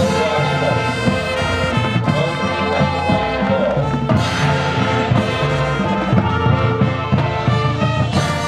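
High school marching band playing its field show: massed brass with percussion, loud and continuous.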